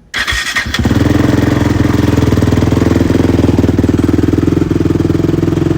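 Honda TRX450 quad's single-cylinder four-stroke engine starting up: a short burst as it catches, then settling within a second into a steady, loud idle with a fast even pulse.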